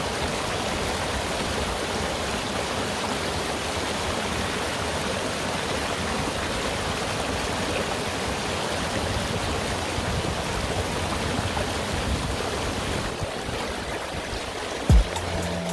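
Mountain valley stream running steadily, an even rush of flowing water. Near the end a low thump sounds and music starts.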